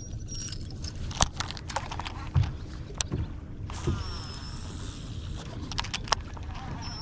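Boat motor running steadily at low speed, a low rumble with a few sharp clicks and knocks from the boat and a faint high-pitched tone that comes and goes.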